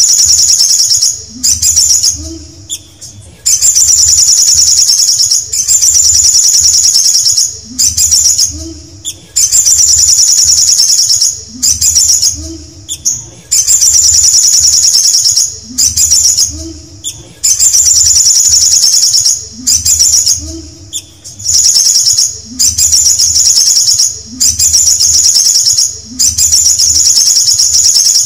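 Male olive-backed sunbird singing: a high, rapid trilled phrase about a second and a half long, repeated about every two seconds with short pauses between, while its wings flutter.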